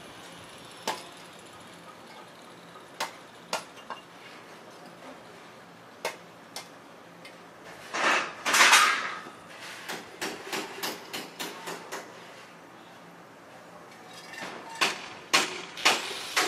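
Construction-site work heard from a distance: scattered hammer blows, then a short, loud circular-saw cut about halfway through. A quick run of hammer strikes, roughly three a second, follows the cut, and more blows come near the end.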